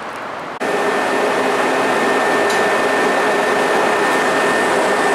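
Steady hum and a high, steady whine from a stainless-steel CTA rapid transit car standing at the platform with its air-conditioning and onboard equipment running. The sound starts abruptly under a second in, replacing a quieter outdoor background.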